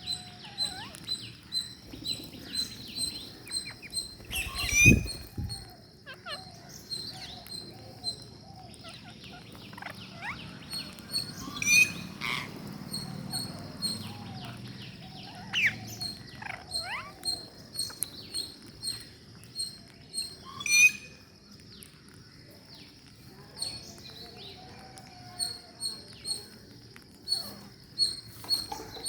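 Parrots chirping and calling: a stream of short high chirps and sliding calls, with a louder harsh call about five, twelve and twenty-one seconds in.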